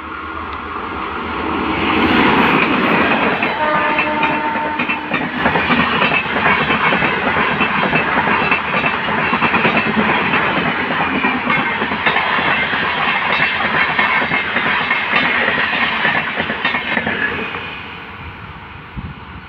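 A WAP5 electric locomotive and its passenger coaches pass at speed. The sound builds over the first two seconds into a loud rush with rapid clickety-clack of wheels over rail joints. It fades away after about seventeen seconds as the train recedes.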